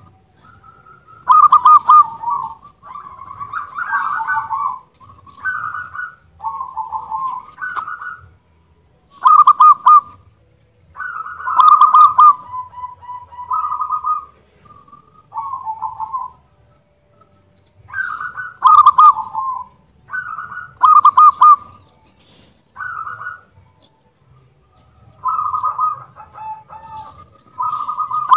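Zebra dove (perkutut) singing: short phrases of rapid stuttering notes running into a cooing tail, repeated every second or two with a few brief pauses.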